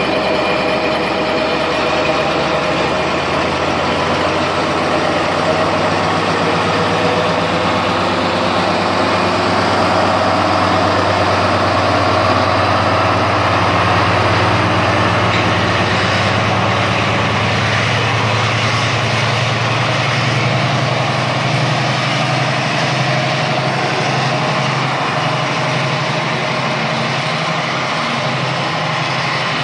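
Freightliner Class 70 and Class 66 diesel locomotives pulling a container freight train away: a steady, deep diesel engine drone that swells in the middle as the locomotives pass and gives way toward the end to the train running past.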